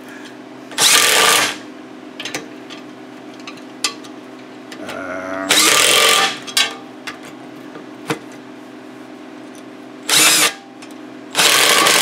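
Milwaukee cordless impact driver hammering quarter-inch locking nuts tight on a snowblower auger bushing flange, in four short bursts a few seconds apart.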